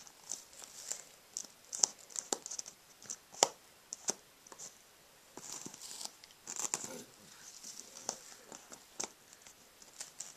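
Cardboard jigsaw puzzle pieces being handled, pressed together and slid over a foam play mat: scattered light taps, clicks and rustles, with a few sharper taps and a longer rustle about two-thirds of the way through.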